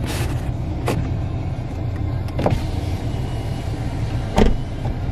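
Car running, heard from inside the cabin: a steady low rumble with four sharp knocks, the loudest about four seconds in.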